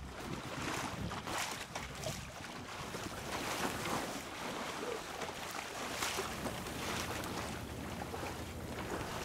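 Wind buffeting the microphone over water rushing and splashing along the hull of a small wooden open sailing boat under way, with brief splashes every second or so.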